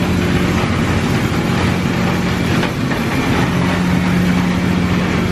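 Engine-room machinery of the steamboat Natchez running loudly and steadily while the boat is under way, a low steady hum over a dense mechanical noise.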